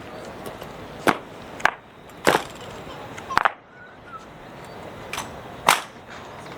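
Honor guard rifle drill: sharp wooden knocks and slaps of hands on rifles and rifle butts, about six strikes at uneven intervals, the loudest near the end.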